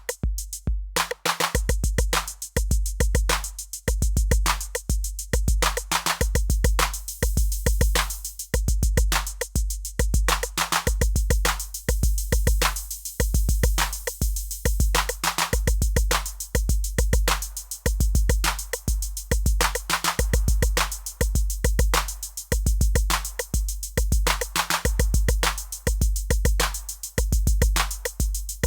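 Roland Aira TR-8 drum machine playing an unprocessed factory pattern on its TR-808 kit: a steady groove of long, deep bass-drum notes under dense, fast hi-hats and other percussion hits.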